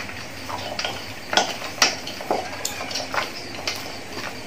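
Hands mixing raw chicken pieces into a spice marinade in a stainless steel bowl: irregular clicks and knocks against the metal bowl, the loudest about a second and a half to two seconds in.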